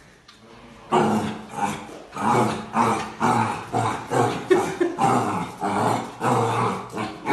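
A dog growling in a string of short, rapid vocal pulses, about two a second, starting about a second in.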